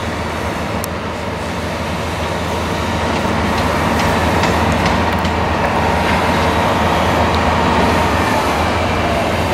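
New Holland CX combine harvester with an eight-row Geringhoff corn header harvesting maize under load: a steady heavy-machine drone with a low engine hum and a faint whine that slides down near the end.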